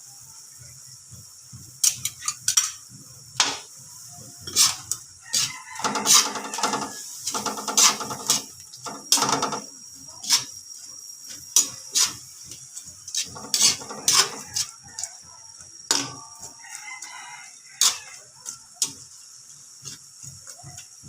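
Shrimp in garlic butter sauce sizzling in a pan, with a utensil clicking against the pan many times as it is stirred. A rooster crows in the background, twice in the middle and again about two-thirds of the way through.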